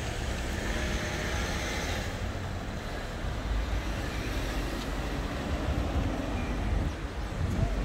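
City street ambience: a steady low rumble of road traffic, with a band of hiss in the first couple of seconds.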